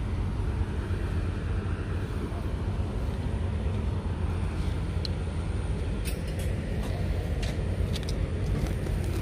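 An engine running at a steady speed, a low even drone, with a few faint light clicks about two-thirds of the way in.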